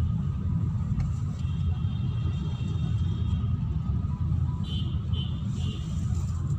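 Steady low rumble of a car's engine and tyres heard from inside the cabin while driving, with three faint short high beeps about five seconds in.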